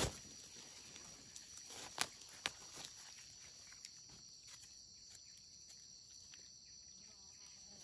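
Steady high-pitched insect drone with faint rustling and scattered sharp snaps, the two loudest about two and two and a half seconds in.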